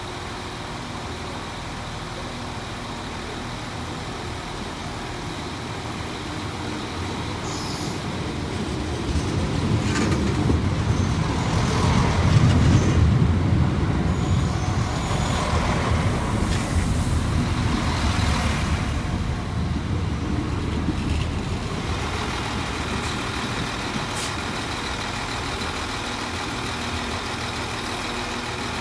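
Irish Rail 22000 Class diesel multiple unit running past along the platform, its underfloor diesel engines and wheels rumbling, loudest about twelve to fourteen seconds in and then fading off.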